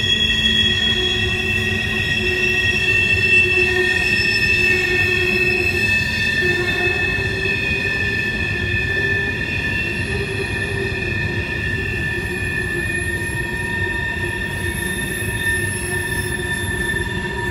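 Empty coal hopper cars rolling past on a sharp curve, their wheels squealing in several steady high tones over a low rumble of wheels on rail. The squeal comes from wheel flanges grinding against the rail as the cars round the curve.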